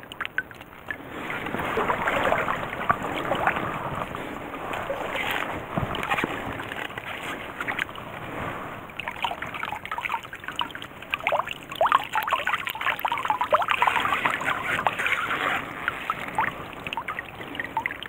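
Stream water splashing and dripping around a dip net, with wet leaves and weeds crackling in the mesh as gloved hands sort through the catch. The sound comes in irregular bursts of rustling and splashing.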